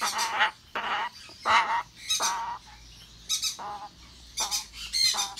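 A young African grey parrot squawks over and over while it is held down and its crop is handled: about eight short, loud calls, each under half a second, spaced roughly half a second to a second apart.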